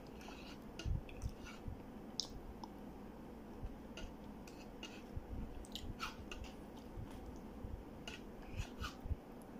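Plastic spoon scraping and clicking against a plastic yogurt cup, with soft eating and mouth sounds; faint, irregular short clicks that come in small clusters.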